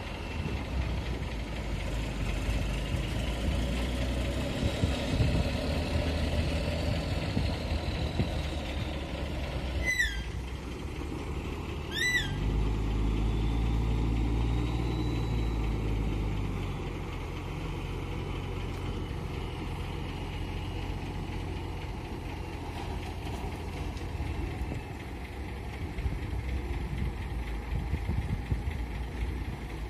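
Heavy truck's diesel engine running steadily, then pulling harder and louder for a few seconds about twelve seconds in before settling back. Two short sharp squeaks, like air-brake or air-valve chirps, come about ten and twelve seconds in.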